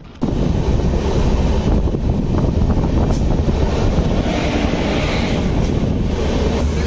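Indian Railways express sleeper coach running, heard from its open doorway: a steady rumble of wheels on the rails with wind on the microphone, as the train runs into a station alongside another train. It cuts in suddenly just after the start.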